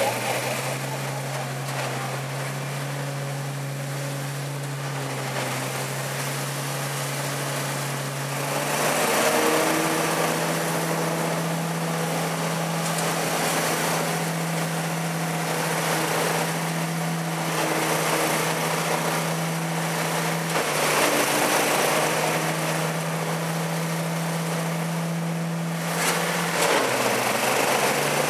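Scag Giant-Vac truck loader's 35 hp Briggs & Stratton Vanguard V-twin engine running steadily at half throttle, under the rush of air through its 25-inch impeller and intake hose. The rush swells in repeated surges every few seconds as the nozzle is swept into the leaf pile and draws in dry leaves, and the engine note dips briefly twice.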